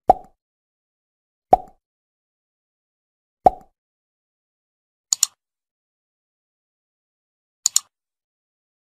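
Editing sound effects over an animated title: three short, sharp hits with a brief ringing tone, about a second and a half to two seconds apart. From about five seconds in come mouse-click effects, each a quick double click, twice, as the on-screen cursor presses the subscribe buttons.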